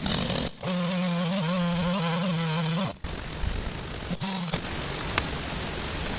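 A motorised power tool running steadily for about two seconds, then again briefly, with abrupt cuts between the bursts, over a steady background hiss.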